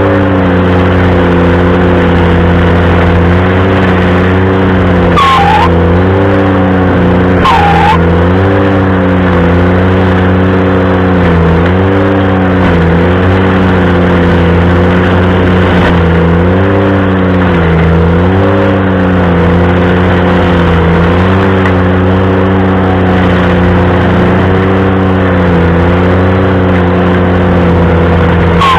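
Ventrac compact tractor's engine running a stump grinder, steady and loud, its pitch dipping briefly every second or two under load. Two short squeals cut through, about 5 and 7.5 seconds in.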